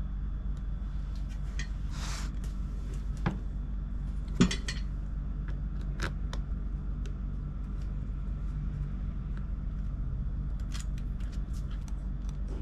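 Small metal tools and parts clicking and scraping as a MacBook Pro is worked on, with a sharp knock about four and a half seconds in, over a steady low hum.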